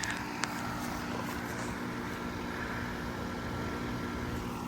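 2011 Bryant Preferred Series 2.5-ton heat pump outdoor unit running steadily and quietly: Copeland scroll compressor hum and condenser fan, with one light click about half a second in.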